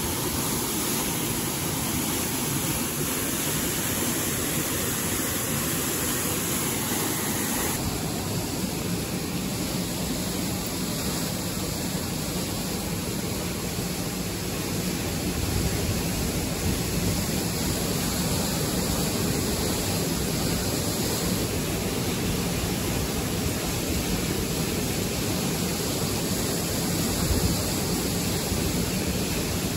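Steady rushing of water pouring from a dam's discharge outlet, an even noise with no breaks.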